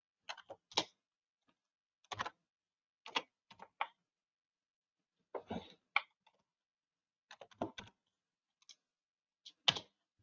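Computer keyboard keystrokes typed in short clusters with pauses between, the sharpest stroke near the end as the entry is sent.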